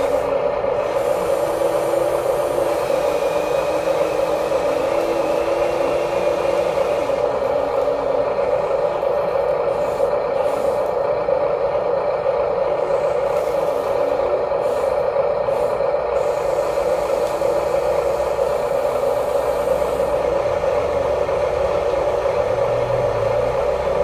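The electric motors of a Huina 1593 RC excavator whine steadily as its arm and bucket work, with gravel scraping and clattering.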